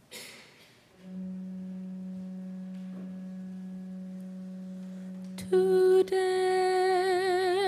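A steady held low note, like an organ or keyboard drone, sounds from about a second in. About five and a half seconds in, a solo voice comes in over it, singing a slow sustained chant note with vibrato. There is a short soft hiss at the very start.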